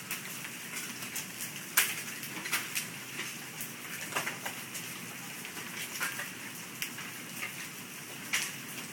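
Hailstorm: a steady hiss of rain with hailstones striking the sidewalk and ground in scattered sharp cracks, the loudest about two seconds in.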